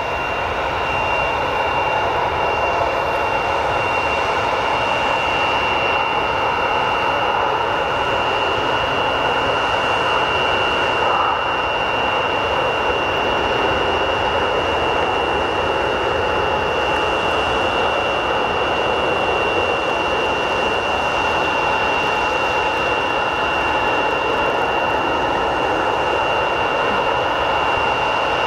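Two Dassault-Breguet-Dornier Alpha Jet A trainers at full takeoff power during a formation takeoff roll, their twin Larzac turbofans giving a loud, steady jet rush with a high-pitched whine over it. The level climbs a little right at the start, then holds as the jets roll and lift off.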